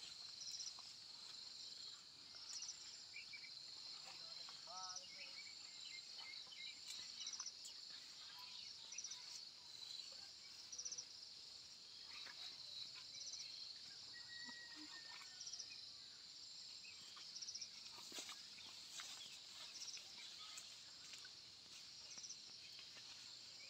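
Faint, steady, high-pitched insect chorus in the jungle scrub, with a pulsing chirp over it, a few faint bird calls and small clicks.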